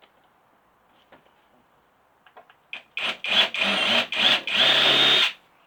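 Cordless impact driver run in four short bursts, the last one longest, on a stuck screw that won't come loose.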